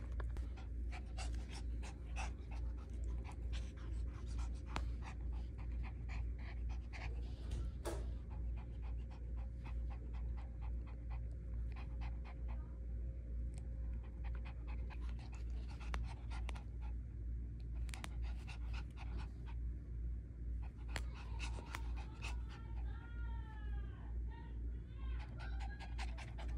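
Small long-haired terrier panting in a steady rhythm, with scattered small clicks and taps throughout.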